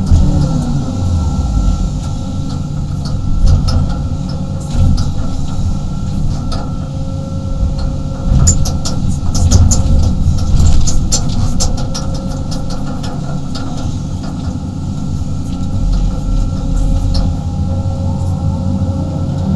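A 35-ton excavator's diesel engine and hydraulics, heard from inside the cab, running steadily under load with a steady whine. Around the middle comes a run of clicks and knocks as the bucket scrapes through soil and clods.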